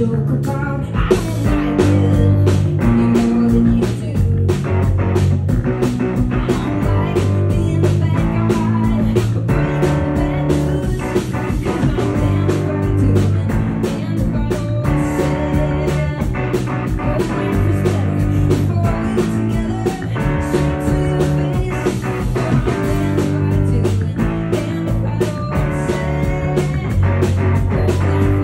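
A live rock band plays an instrumental passage with no singing: electric guitar over bass and a drum kit keeping a steady beat.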